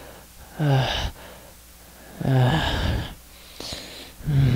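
A low voice gasping for breath: three long, voiced out-breaths about a second and a half apart, each falling in pitch, with a faint in-breath between the second and third.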